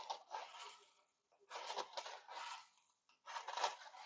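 Small copper spiral prismatic packing pieces clattering and scraping against each other and a plastic jug as they are stirred with a plastic spoon in cleaning solution, in three short bursts about a second apart.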